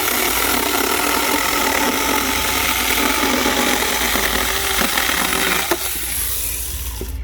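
A 21 V cordless mini pruning chainsaw running, its electric motor and chain whizzing steadily. It winds down about six seconds in and stops near the end.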